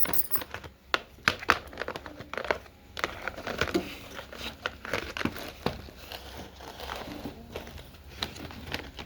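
Plastic packaging crinkling and rustling as a toy set is unboxed, with many small, sharp clicks and taps at irregular intervals.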